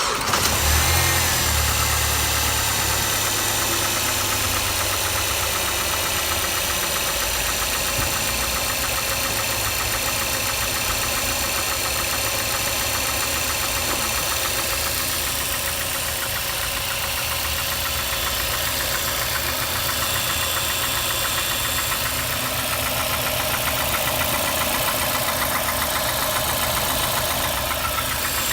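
Mazda 6 MPS 2.3-litre turbocharged four-cylinder engine, freshly started and idling with a fast, light knocking. The knock is present only below about 1500 rpm and its cause is unknown to the owner; the rod and main bearings have been checked and the timing chain replaced.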